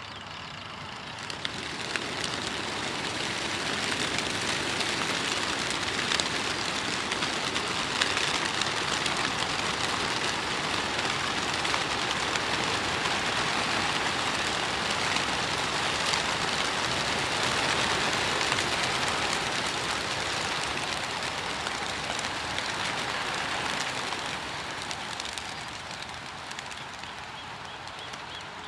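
Wingbeats of a large flock of racing pigeons released together from a transport truck: a dense, rushing whirr of wings that builds about a second in, holds, and fades near the end. A few sharp clacks come as it starts.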